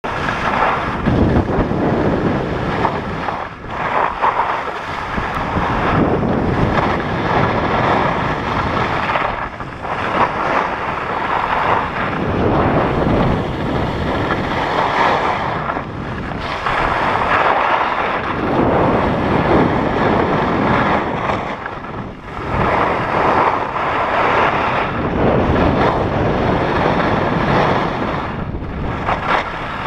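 Wind rushing over the microphone of a camera carried by a skier going downhill, mixed with the hiss and scrape of skis on packed snow. The noise swells and eases, dropping off briefly every few seconds.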